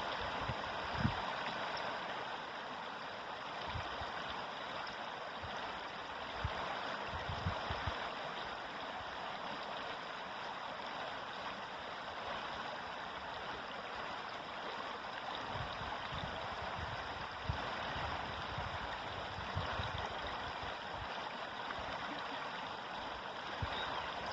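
River water flowing steadily, a constant even rush, with a few faint low thumps now and then.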